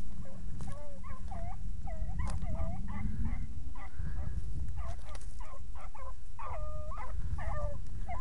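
A pack of hounds baying as they run a rabbit's trail: many short, overlapping calls from several dogs, over a steady low rumble.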